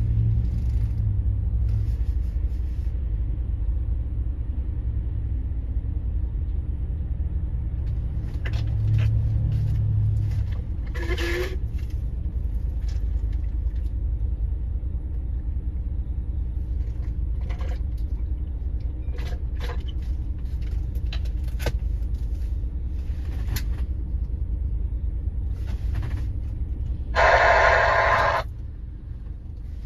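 Steady low rumble of road traffic and vehicle engines, with scattered knocks and a brief loud hiss lasting about a second near the end.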